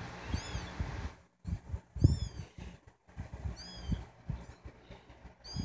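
Very young kittens mewing: about four thin, high-pitched calls, each rising then falling, over soft low thumps.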